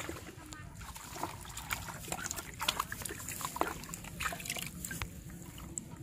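A freshly caught fish flapping in water in a plastic bucket, making irregular splashes and slaps against the sides.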